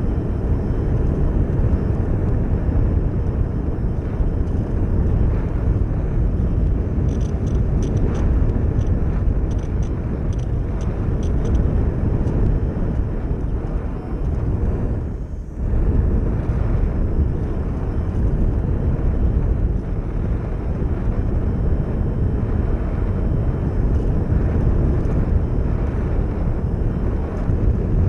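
Onboard in-flight noise of a foamboard RC plane: wind rushing over the camera's microphone mixed with its brushless motor and propeller. The sound is steady apart from a short dip about halfway through.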